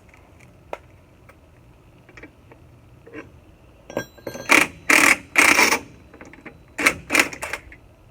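Hand tools and metal parts at work on a Jeep drum hub as the hub puller frees it: a few light clicks, then, about four seconds in, a run of six or so harsh metallic rasps and scrapes, each well under a second.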